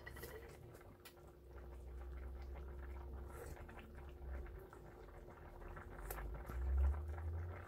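A pot of fish broth boiling on an electric stove, with soft patter and small mouth sounds as the broth is tasted from a spoon, over a faint steady hum. A louder low thump comes near the end.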